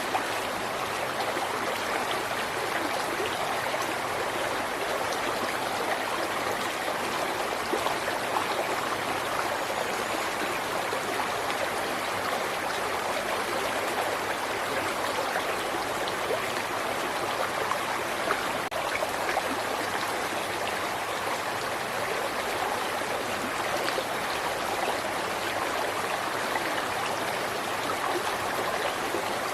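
River water running steadily over rocks: an even, unbroken rush of flowing water.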